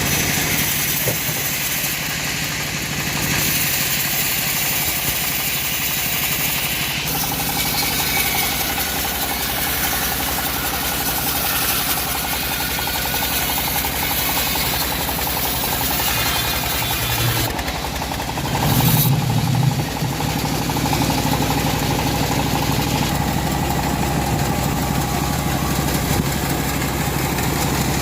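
Engine of a wood-cutting saw running steadily. Its note shifts about a quarter of the way in, and there is a brief louder surge about two-thirds of the way through.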